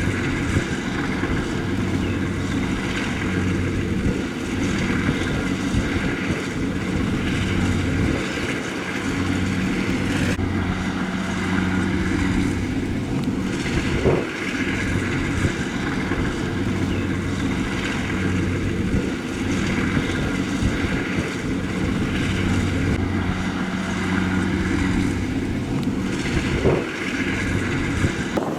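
Engine of a rice harvesting machine running steadily under load, its low hum swelling and fading every couple of seconds, with a brief knock about halfway through and again near the end.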